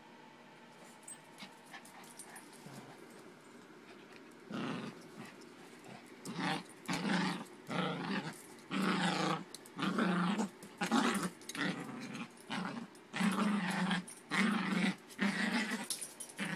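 Yorkshire terrier growling in short, repeated bouts as it tussles with a plush toy in play, starting about four and a half seconds in.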